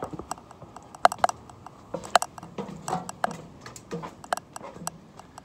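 Footsteps and light knocks at an uneven pace as a person steps out through an RV's entry door and down its steps to the ground.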